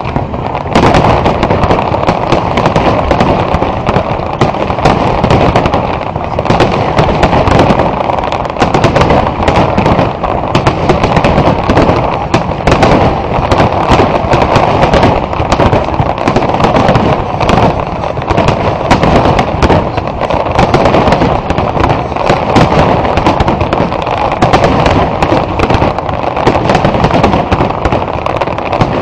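Aerial fireworks display: rapid, overlapping bangs and crackle from many shells bursting at once, dense and unbroken throughout.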